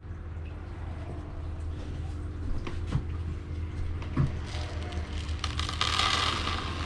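Granular bonsai soil pouring from a plastic jug into a plastic tub: a few light knocks as the jug is handled, then the grains start to fall near the end in a pattering hiss that builds as the pour thickens. A low steady hum runs underneath.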